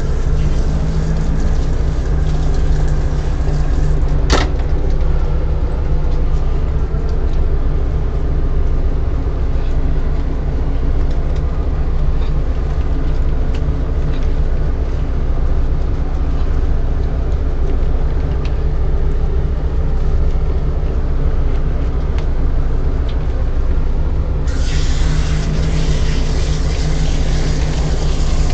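Steady low motor hum, with a hand-held bath sprayer switching on about 24 seconds in and hissing water onto a wet dog's coat.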